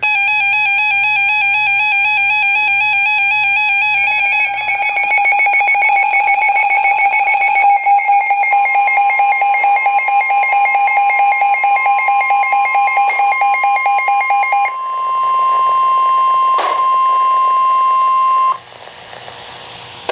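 Emergency Alert System attention tones. A loud, pulsing, buzzy alarm tone is joined about four seconds in by a second buzzy tone, and a few seconds later by a steady, higher pure tone. The buzzy tones stop about three-quarters of the way through, leaving the pure tone alone until it cuts off shortly before the end.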